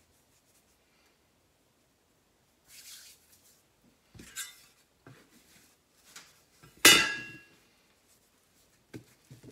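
Soft handling rustles and light taps on a kitchen counter, then about seven seconds in one sharp metallic clink with a brief ring as a stainless steel dough scraper is set down on the stone countertop.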